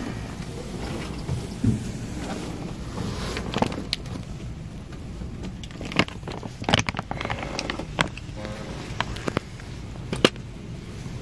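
Hand tool work on the boat: a long screwdriver clicking and knocking against metal fittings, a handful of sharp knocks a second or two apart, the loudest near the end, over a steady low rumble.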